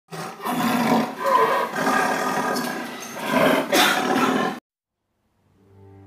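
A big-cat roar sound effect, loud and drawn out with several surges, cutting off abruptly about four and a half seconds in. A low, sustained music chord fades in near the end.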